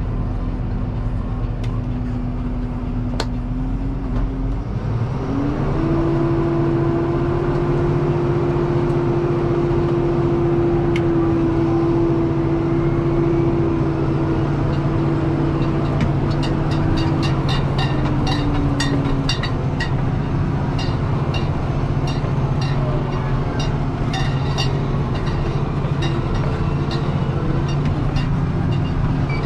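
Deutz-Fahr 6185 TTV tractor's six-cylinder engine running steadily, heard inside the cab. A whine climbs in pitch about five seconds in, holds, then drops away past the middle, and from then on sharp ticks and rattles come in quick, uneven succession.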